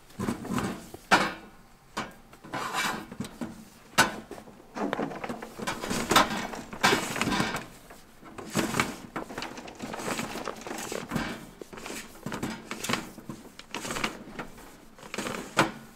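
Heavy black underground secondary service cable being pulled by hand up through conduit into an electric meter base: irregular scraping and rustling of the cable sliding, with a few sharp knocks.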